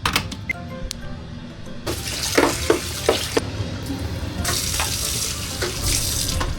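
Kitchen tap running in two spells, with clinks and knocks of things being handled at the sink.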